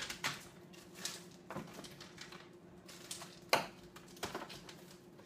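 Ice cubes clinking and knocking in a freezer ice bin as a hand digs into it: scattered clicks and knocks, the loudest about three and a half seconds in, over a faint steady hum.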